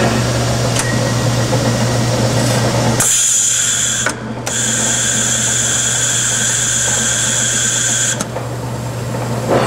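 Wells Model 1200 horizontal band saw running, a steady motor hum under the blade working through steel bar, cutting dry at slow speed with a low feed rate. About three seconds in, a high-pitched whine sets in, drops out briefly, then stops again about five seconds later.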